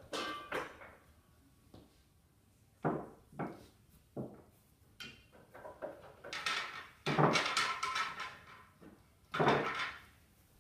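Pool balls knocking and clacking against one another as they are gathered into a ball tray for a re-rack: a few separate clacks, then a longer rattling clatter about six to eight seconds in and another short one near the end.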